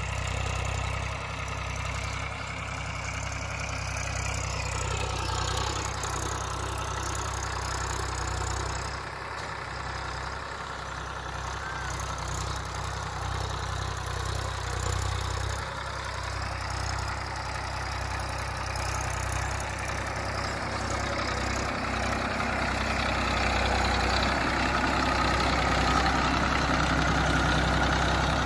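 Tractor diesel engine running steadily, its low engine note growing a little louder in the last few seconds.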